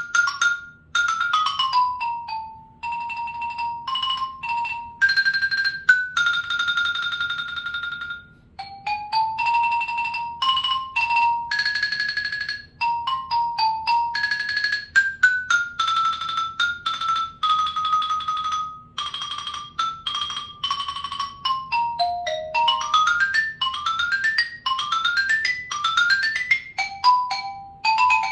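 Solo xylophone played with two mallets: a brisk etude of quick single struck notes mixed with long held notes sustained as rolls. Several fast rising scale runs come near the end.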